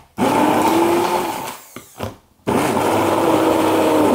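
Electric blender pureeing chopped chicken sausages with eggs and wholemeal flour into a thick paste, run in bursts: one long run, a short blip about two seconds in, then another long run.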